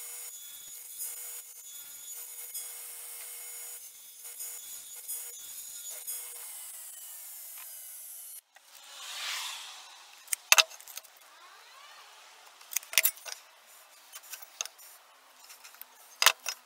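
Table saw running, its steady whine slowly falling in pitch, cut off abruptly about eight seconds in. After a short swish come scattered sharp clicks and taps from a tape measure and pencil marking wood.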